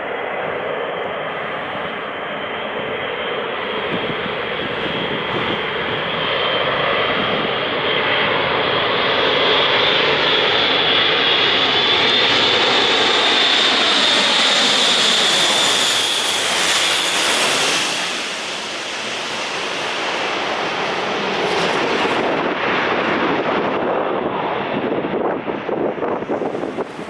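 Airbus A400M Atlas's four TP400-D6 turboprops passing low and close on approach: a steady whine over heavy propeller noise builds to its loudest about halfway through and falls in pitch as the aircraft passes. It then gives way to a rough whipping and whooshing of prop-wash and air that flutters near the end.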